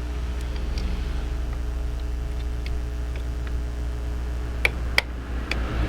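A steady low hum with a few sharp clicks near the end, the small knocks of plastic printer parts being handled.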